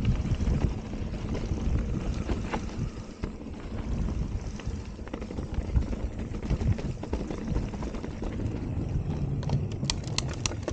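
Mountain bike on a dirt singletrack with wind buffeting the microphone: low noise that is heaviest at the start and eases after a few seconds. Scattered clicks run through it, and a quick run of sharp clicks comes near the end.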